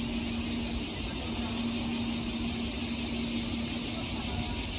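JR Shikoku 8000 series electric train pulling slowly out of the station. It makes a steady low hum with one held tone over a continuous hiss.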